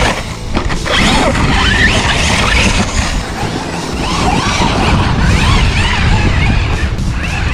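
Electric RC truck motor whining, its pitch rising and falling over and over with the throttle, over a steady low rumble of wind and tyres on dirt.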